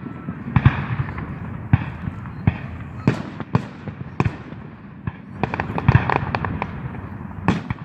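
Fireworks going off: a string of sharp bangs and pops at irregular intervals, with a dense run of crackling pops about five and a half to six and a half seconds in.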